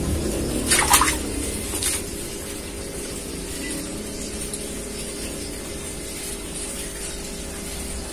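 Water flowing steadily through a garden-hose siphon draining an aquarium, with two short knocks about one and two seconds in.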